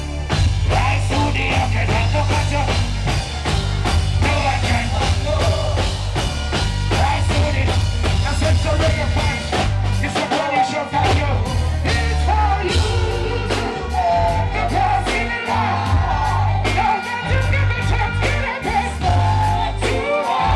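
Live reggae band with heavy bass and a drum kit playing under a lead singer, with backing vocals joining in.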